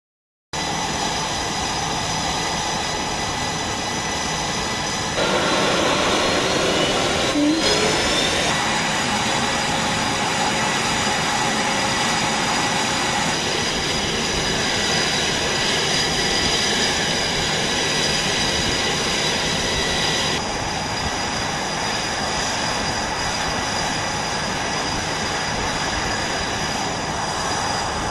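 Jet aircraft engines running on an aircraft carrier's flight deck: a loud steady rush with several high whining tones. It gets louder about five seconds in and drops a little about twenty seconds in.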